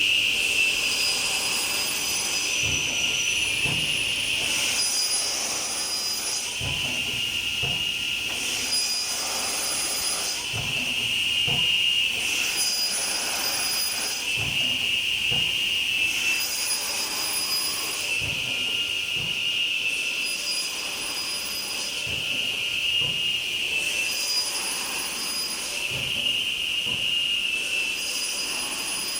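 A CNC cut-off saw's circular blade runs with a steady high whine while it cross-cuts solid wood stock over and over. Each cut adds a harsh hiss lasting a second or two, about every two to four seconds, and dull knocks come in between.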